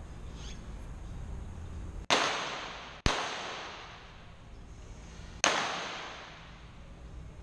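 Three pistol shots on a shooting range: two about a second apart, then a third about two and a half seconds later. Each sharp crack rings out in the large range hall.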